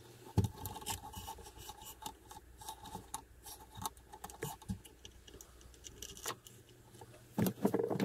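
Irregular clicks, scrapes and rattles of hand work with tools and small parts, over a low steady hum that cuts off about six seconds in, with a louder cluster of knocks near the end.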